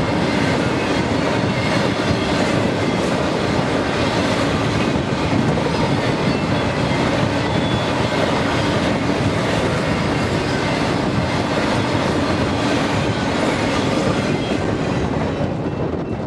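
A freight train's cars rolling past close by, a loud steady rumble and rattle of wheels on rail that starts to die away near the end.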